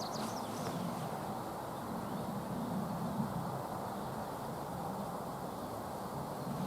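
Forest ambience: a steady low rushing noise, with a few short high bird chirps in the first second.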